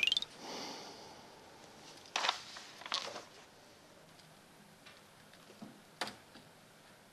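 A fast rising run of tones stops just after the start. Then quiet room tone with three short knocks and clicks, about two, three and six seconds in, from things handled on a cluttered work desk.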